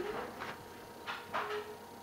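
Domestic cat giving two short, low trills while a hand rubs its head, with brief rustling and scuffling of fur and paws in between.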